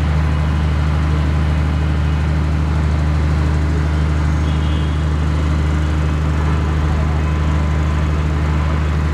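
Heavy construction machinery running with a steady, loud, low engine drone that does not change.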